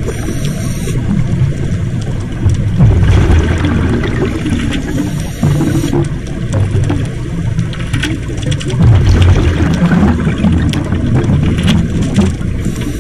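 A scuba diver breathing through a regulator, heard through an underwater camera housing. There is a short hiss on each inhale, near the start, about five seconds in and near the end, and a rumble of exhaust bubbles on each exhale between them.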